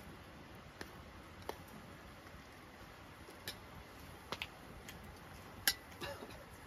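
Metal spoon clicking against a stainless steel bowl as food is served: a handful of scattered, light clicks at irregular intervals.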